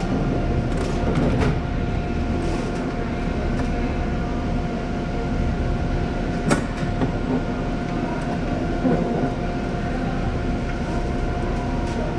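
Steady machinery drone with a constant whine, like a running appliance or ventilation unit, and a few light clicks and taps of parts being handled; the sharpest click comes about six and a half seconds in.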